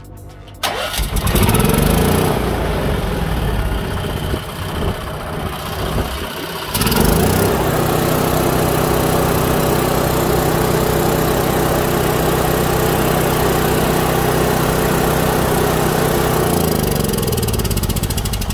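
Kohler generator's four-stroke gasoline engine starting about half a second in, running unevenly for a few seconds, then settling into a steady run about seven seconds in, with its pitch dropping slightly near the end. It now fires because its faulty magneto, which gave no spark, has been replaced.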